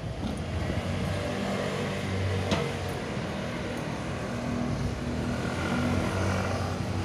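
Street traffic: motor scooter engines running past with a steady low hum, and a single short click about two and a half seconds in.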